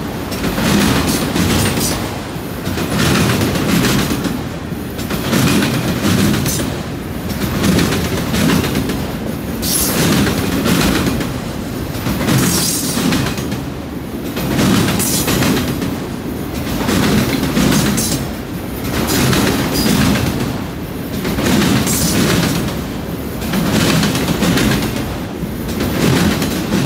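Autorack freight cars rolling past, their steel wheels clicking and clattering over the track. The sound swells and eases about every two seconds as each car's wheel sets go by.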